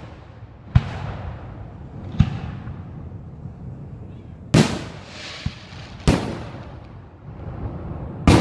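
Aerial firework shells bursting in a display: five sharp booms about one and a half seconds apart, each followed by a rolling echo, the last three the loudest.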